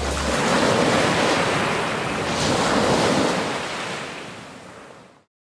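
Sea waves washing in a steady rush that swells and eases, fading out over the last couple of seconds and then stopping dead.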